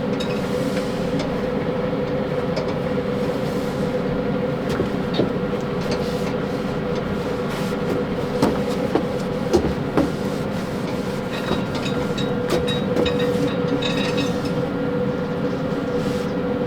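Yoder YS640S pellet smoker running with a steady fan hum, with a few light clicks and knocks.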